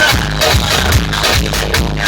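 Loud electronic dance music with a heavy kick drum beating about twice a second, played through a large DJ sound system.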